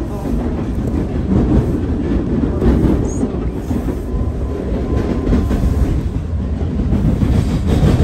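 Toronto subway train running along the track, heard from inside the car: a steady, loud rumble of wheels and running gear, with a faint whine in the middle.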